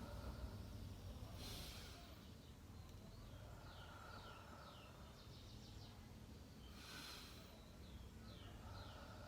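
A person taking slow, deep breaths, two soft inhalations about five seconds apart, the deep-breathing step that opens the effective-cough technique. Faint high chirps sound in the background.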